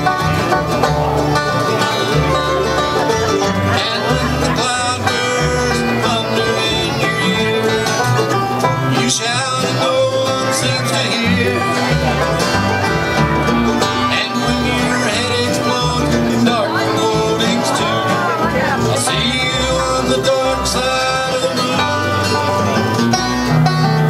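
Live bluegrass band playing an instrumental passage: banjo, fiddle, acoustic guitar, mandolin and upright bass together.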